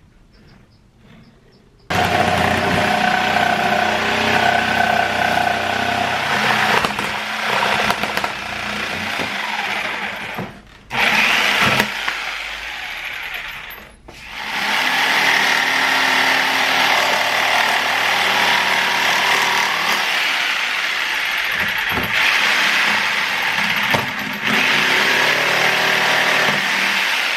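A handheld power tool running under load, cutting a new door-panel backboard along a traced outline. It starts about two seconds in, stops briefly twice, then runs on.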